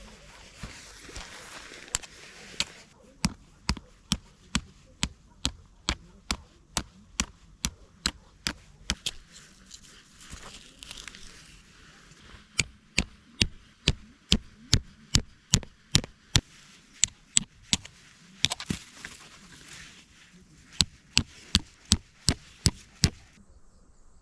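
Repeated sharp knocks at about two a second, in three runs separated by pauses, with rustling between them.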